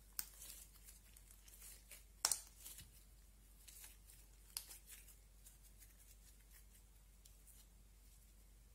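Clay slime being folded and kneaded by hand, giving soft sticky clicks and pops, the loudest about two seconds in, then only faint scattered clicks as it is stretched.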